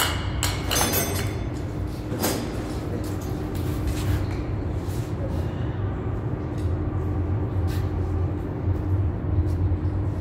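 A steady low mechanical hum with a faint steady tone above it, broken by a few sharp clicks and knocks, most of them in the first two seconds.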